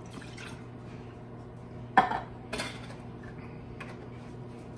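Kitchenware clatter: a metal can emptied into a glass bowl and set down on the counter, with one sharp knock about two seconds in, a second lighter one just after, and a few light clinks. A steady low hum runs underneath.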